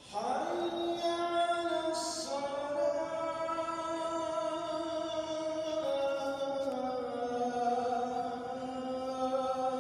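Background vocal chant overlaid on the video: a singing voice holding long notes that glide slowly from one pitch to the next, starting abruptly. No instruments are heard alongside it.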